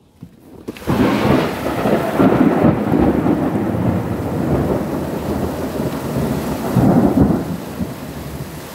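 Thunderstorm: a loud rolling thunder rumble breaks in about a second in over heavy, steady rain, swells again near the end, then eases off.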